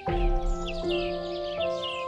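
Background instrumental music of held notes that change every half second or so, with short, repeated bird chirps over it.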